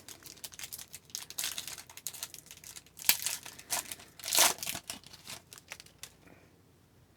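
A hockey card pack wrapper being torn open and crinkled in the hands, in irregular crackling bursts, the loudest about three and four and a half seconds in.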